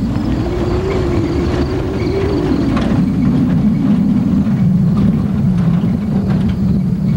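An old pickup truck's engine running under way. Its pitch rises over the first couple of seconds, then drops back to a steady drone. Scattered sharp clatters come from the truck jolting over a rutted dirt road.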